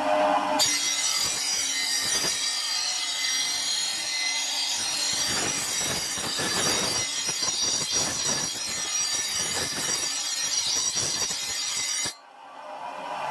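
Bench grinder's abrasive wheel grinding a spring-steel knife blade, a loud, steady, rasping hiss of steel on stone. It starts about half a second in as the blade is pressed on, and stops sharply about a second before the end.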